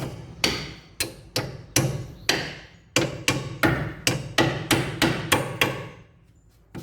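Steel hammer striking the ball joint pinch bolt, a quick run of repeated ringing metallic blows, about three a second, that stops near the end. The blows drive the bolt down into a car's front suspension lower control arm.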